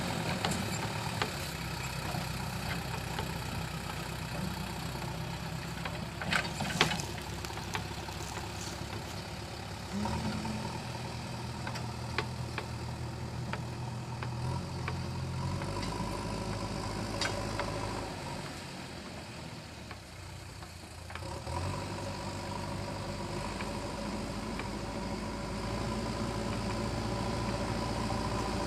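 JCB 3DX backhoe loader's diesel engine running under changing load. The engine note steps up about ten seconds in, eases off and drops quieter a little past the middle, then picks back up. A few sharp knocks come about six to seven seconds in.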